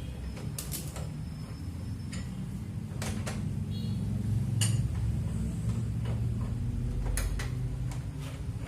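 Metal tools and machine parts clinking and tapping: about eight sharp clicks at uneven intervals, over a steady low hum.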